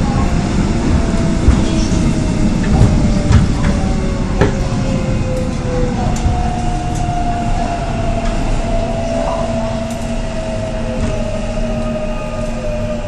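Korail Seoul Subway Line 3 electric train heard from inside the passenger car while running: a steady rumble with a few sharp wheel clicks in the first half. A whine slowly falls in pitch and the sound eases a little as the train slows.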